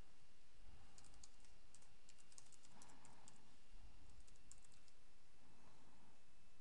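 Faint computer keyboard typing: a run of quick key clicks starting about a second in and stopping a little before the end.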